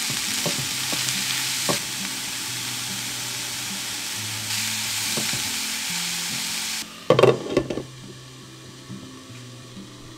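Shredded cabbage sizzling in a non-stick kadai while a silicone spatula stirs it, with soft scrapes and taps. About seven seconds in, the sizzle cuts off and a glass lid clatters onto the pan.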